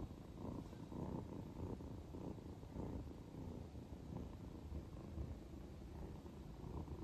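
A kitten purring: a low, rough rumble that swells and eases in a steady rhythm about twice a second.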